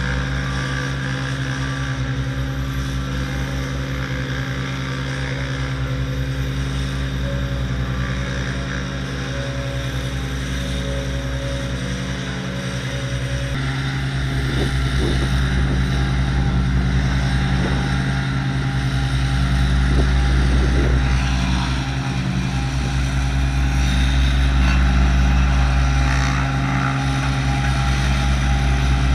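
Ride-on tandem road roller's engine running steadily as it rolls over the dirt track, a constant low drone whose tone shifts a little about halfway through.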